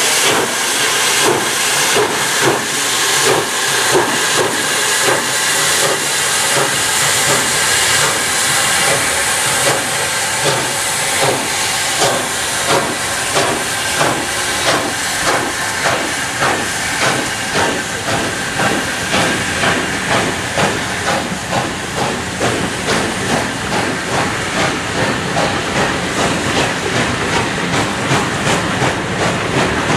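USATC S160 2-8-0 steam locomotive pulling away with a train: a steady run of exhaust chuffs about two a second over the hiss of its open cylinder drain cocks. The hiss thins as the engine moves off and the coaches roll past.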